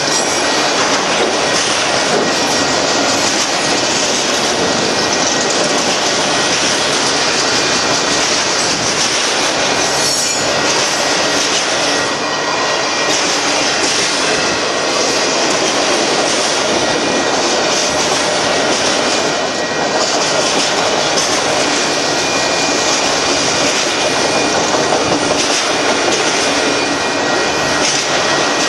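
Freight train of autorack cars rolling past: a steady, loud rumble and rattle of steel wheels on rail, with a faint thin squeal of the wheels running through it.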